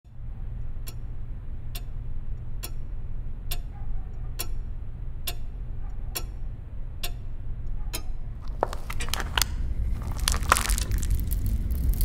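Quartz mantel clock ticking about once a second over a steady low hum. After about eight seconds the ticking stops and gives way to a rising run of crackling and crinkling as the clock face warps and melts.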